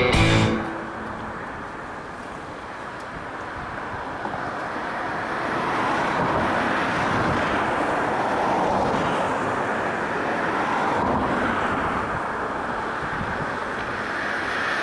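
Strong wind buffeting the microphone: a steady rushing noise that swells and eases.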